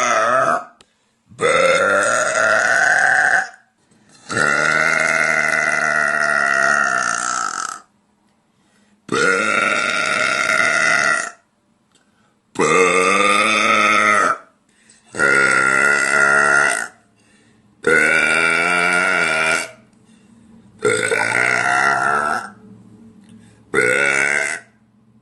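A woman belching again and again: about nine long, loud burps, each drawn out for one to three seconds with short pauses between. The longest, a few seconds in, lasts over three seconds.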